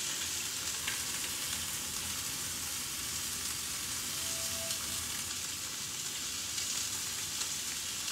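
Turkey-bacon-wrapped stuffed chicken breasts frying in a cast-iron skillet, with a steady sizzle.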